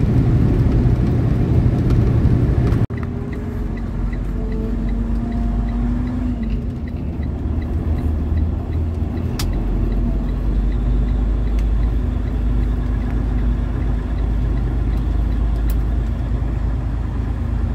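Semi truck's engine and tyres droning steadily from inside the cab while driving on snow-covered road. About three seconds in the sound cuts off abruptly and comes back quieter, a low steady rumble with a faint hum, and a single sharp click near the middle.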